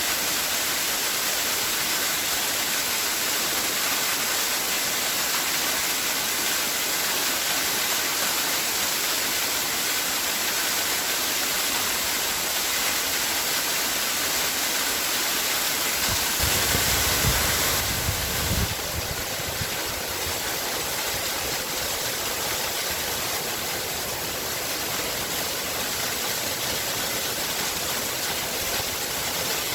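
Waterfall: water rushing and splashing as a steady, full hiss. About two-thirds of the way through, a brief low rumble comes in for a couple of seconds, and after it the rush sounds a little softer.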